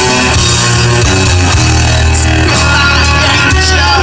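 Loud hair-metal-style hard rock song playing, with electric guitar, bass and drums.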